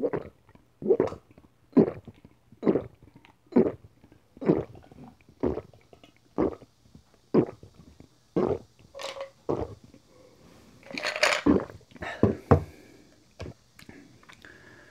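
Loud gulping swallows of iced coconut water chugged from a glass, about one a second. The gulps stop about ten seconds in, followed by a short noisy burst and a couple of sharp clicks.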